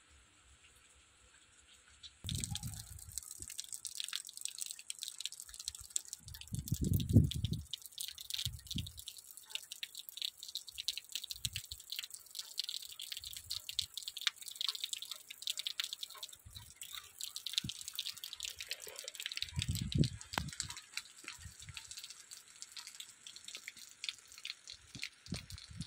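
Rain pattering, many separate drops ticking close by, starting suddenly about two seconds in after a near-silent start. A few low rumbles come and go over the rain, the loudest about seven seconds in.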